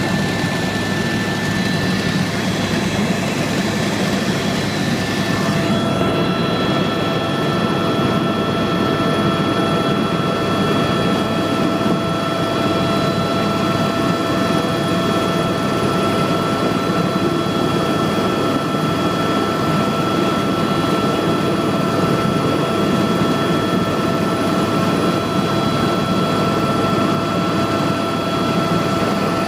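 Helicopter running with steady engine and rotor noise and a few constant whining tones. About six seconds in the higher hiss drops and a new steady whine takes over, then the drone carries on unchanged.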